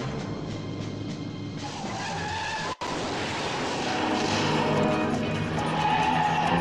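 Film car-chase soundtrack: car engines and skidding, squealing tyres, with music underneath. The sound drops out for an instant about three seconds in, at a cut between scenes.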